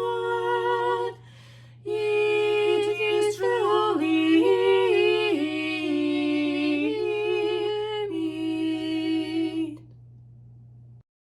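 A woman's voice singing a hymn unaccompanied, in long held notes with a short breath about a second in. The singing ends near the end, leaving a low hum that then cuts off.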